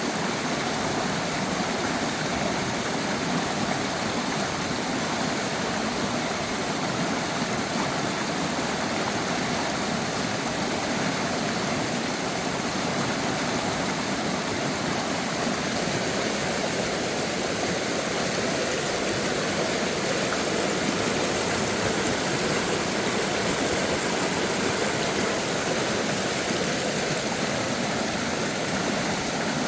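Steady rush of flowing water, continuous and unchanging.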